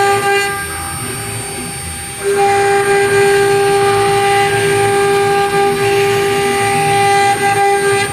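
CNC router's high-speed spindle motor running with a steady pitched whine. The whine drops in level about half a second in and comes back strongly just after two seconds.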